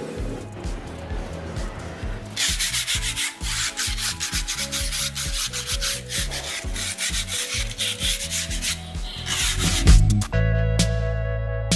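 Hand sanding of a rough cement-plastered pillar, an abrasive sheet scraping over the surface in quick repeated strokes from about two seconds in. Near the end a loud musical sting with a deep bass note comes in.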